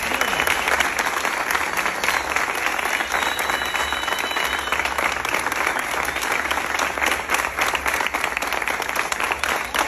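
Crowd applauding, many people clapping steadily together.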